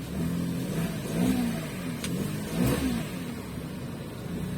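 Toyota Wigo's 1KR three-cylinder petrol engine revving up and down a few times, the sharpest rise and fall near the middle. It runs with its new spark plug, the cylinder 1 misfire code having cleared.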